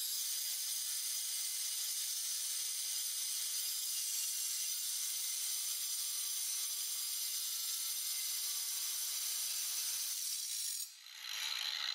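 Angle grinder with a GRAFF diamond cutting disc cutting through a steel bar: a steady high grinding hiss with a faint whine, which drops off briefly near the end and then picks up again.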